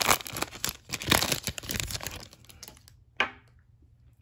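Foil trading card pack being torn open and crinkled by hand for about two seconds, then one sharp tap about three seconds in.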